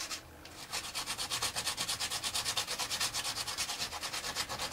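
Carbon brush being rubbed by hand against an abrasive disc in rapid, even back-and-forth strokes, a dry scratching about eight strokes a second after a brief pause at the start. The brush is being ground down a fraction at a time until it slides snugly into the angle grinder's brush holder.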